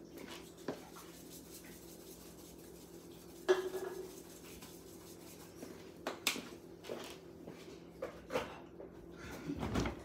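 Kitchen utensils and dishes clinking and knocking on the counter in a few scattered strikes, the loudest a ringing metal clank about three and a half seconds in, over a faint steady hum.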